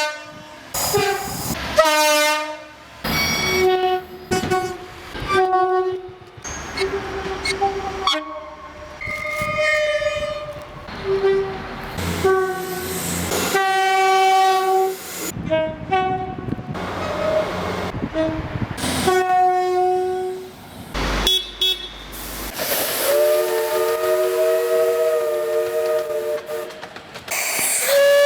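Train horns sounding in a rapid series of separate blasts at differing pitches, each cut off abruptly as the next begins. Near the end comes one long chord of several notes held for a few seconds.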